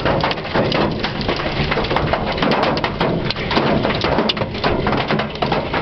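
Heavy rain pelting a car's roof and windows in a thunderstorm, a dense steady patter with many sharp individual hits scattered through it.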